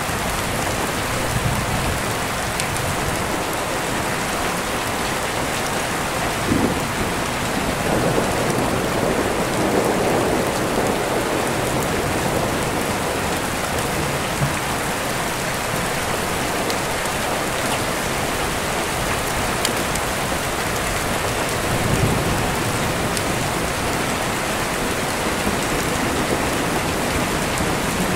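Steady rain falling, with a low rolling rumble of thunder swelling about eight to eleven seconds in.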